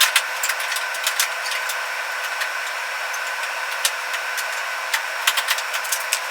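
Power tool running steadily on the truck cab's sheet metal, a high whine with irregular sharp ticks and clicks, as in cutting or grinding out rusted panel.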